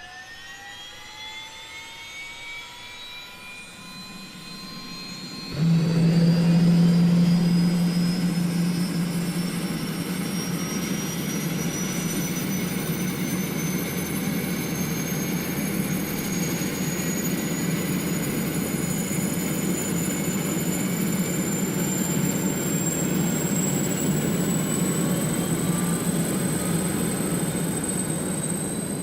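Jet-engine-like spool-up: a whine rises in pitch for about five seconds, then the sound suddenly jumps to a loud, steady running noise with a low hum. A thin high whine keeps slowly climbing to the end.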